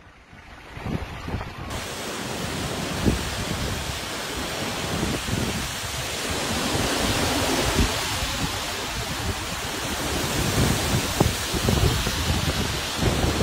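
Strong gale-force wind blowing across the microphone: a steady loud rush with rumbling gusts that swell and ease.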